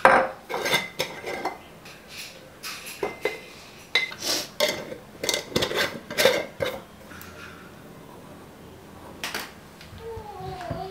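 Wooden spoon scraping and knocking against a plastic blender jar as ground ragi flour is spooned out into a glass jar, with clinks of glass and a metal lid; a single knock comes about nine seconds in, and a short wavering whine is heard near the end.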